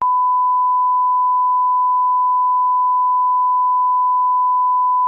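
A loud, steady electronic beep: one pure unchanging tone with no other sound under it, the kind of tone added in editing.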